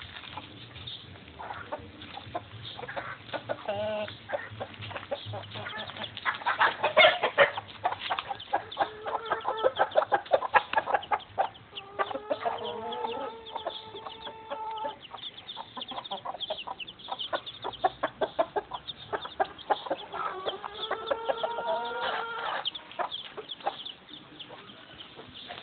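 Backyard chickens clucking, with two long drawn-out calls, one around the middle and one near the end.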